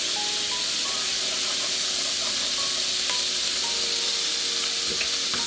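Garlic-butter paste frying in a hot nonstick pan, giving off a steady sizzling hiss with rising steam.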